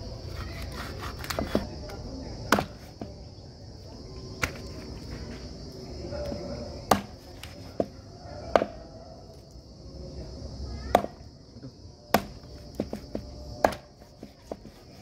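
Large knife chopping through raw meat and bone onto a wooden chopping block: about a dozen sharp, irregular chops. A steady high insect drone runs underneath.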